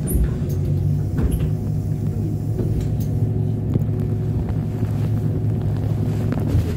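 City bus engine idling at a stop, a steady low hum heard from inside the passenger cabin, with a few light clicks over it.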